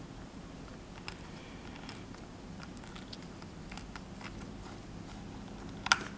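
Small Torx precision screwdriver turning a tiny screw out of a Palm M515 PDA's case: faint scattered clicks and scrapes, with one sharper click near the end.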